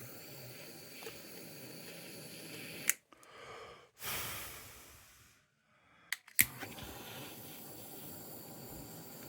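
Small gas torch flame hissing steadily while heating solder joints on tin, in two stretches each opened and closed by a sharp click, with a brief rush about four seconds in that fades away.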